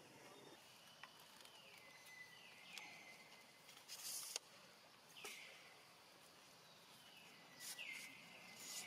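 Faint high animal calls, each gliding down in pitch and then holding a steady note, repeated several times, with a few faint clicks in between.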